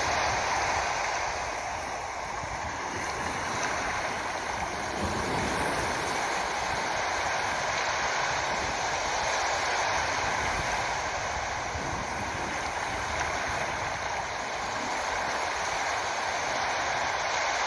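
Steady rushing of flowing water, an even hiss that barely rises or falls.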